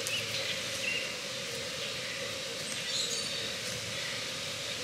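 Outdoor background: a steady hum with a few faint, brief bird chirps.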